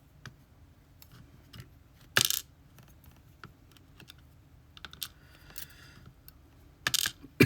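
Small metal clicks and taps from ASSA Twin lock pins and parts being handled and set down: scattered light ticks, a sharper click about two seconds in, and two more near the end.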